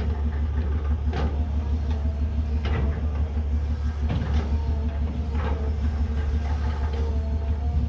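Hydraulic excavator's diesel engine running steadily under load, with short metallic knocks every second or so from the working machine.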